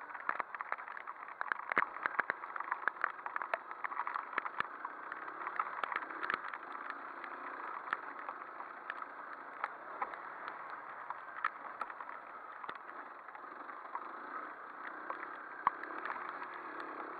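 Off-road motorcycle engine running as the bike rides a rutted, muddy dirt track, with many sharp clicks and knocks from the bike and camera jolting over bumps, thickest in the first half.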